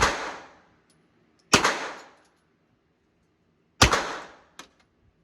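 Three single gunshots at the range, about two seconds apart, each followed by a short ringing echo. A small sharp click comes just after the third shot.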